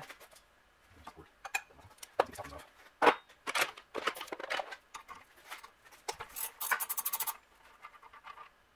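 Hand tools and small metal parts clicking, knocking and clattering on a wooden workbench as a pressure washer pump is worked on by hand, with a sharp knock about three seconds in and a quick run of even clicks about two-thirds of the way through.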